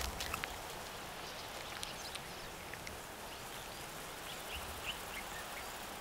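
Quiet natural field ambience: a steady faint hiss with scattered small ticks and a few short, high chirps.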